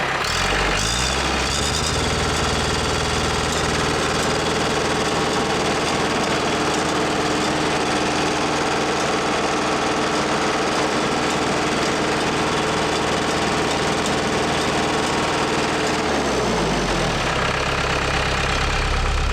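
Case 430 skid steer's diesel engine running, sped up near the start and held at a steady higher speed, then throttled back down to idle about 16 seconds in. It runs without the knock it had before, after a stuck injector was replaced.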